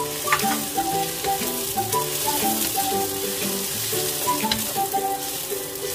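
Julienned carrot and sliced onion sizzling in hot oil in a wok, stirred and tossed with a wooden spatula. Light background music plays underneath.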